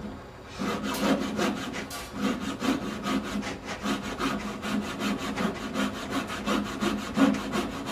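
Coping saw cutting by hand through a pine block: a steady run of quick back-and-forth rasping strokes, starting about half a second in.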